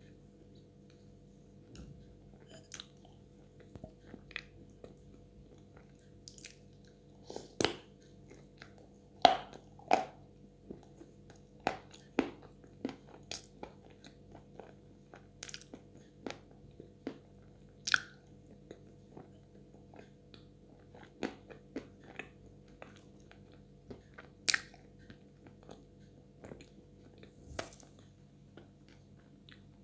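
Close-up mouth sounds of a person biting and chewing a piece of edible Chuy clay coated in wet clay paste: scattered, irregular wet smacks and clicks, with a few louder ones near the middle.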